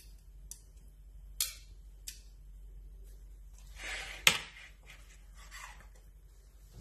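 Kitchen handling sounds at the stove: a few sharp clicks and knocks, the loudest about four seconds in right after a brief rustle, over a faint steady low hum.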